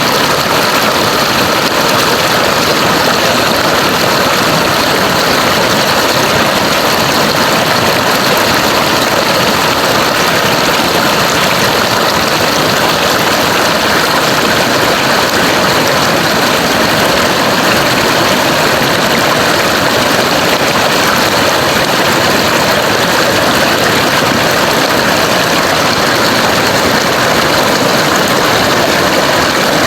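River water rushing, a loud, even hiss that does not change.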